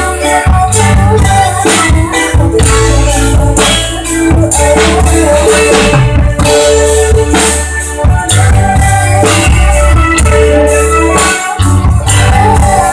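Band music with a drum kit and a heavy bass line keeping a steady beat under guitar and held instrument notes; little or no singing is heard.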